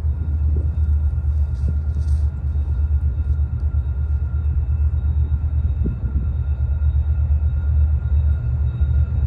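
Low, steady rumble of an approaching diesel locomotive, growing slightly louder, with a faint steady high whine above it.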